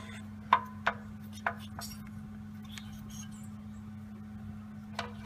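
Ratchet and chrome socket clinking as they come off the engine's freshly tightened oil drain plug: four light metallic clicks in the first two seconds, then a few faint ticks, over a steady low hum.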